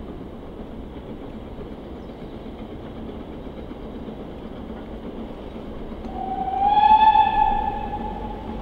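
A steam locomotive's whistle sounds once, about six seconds in: a single clear note that rises slightly as it opens and lasts about two seconds, over a steady rumble.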